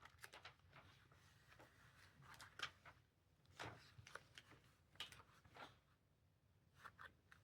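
Near silence with a few faint, scattered crackles and taps of transfer tape being handled over a rhinestone template.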